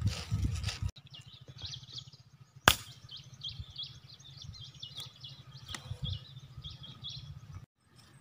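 A single sharp shot from a scoped air rifle about two and a half seconds in, the loudest sound here. Small birds chirp rapidly and high-pitched for several seconds after it. A low rumble at the start stops abruptly about a second in.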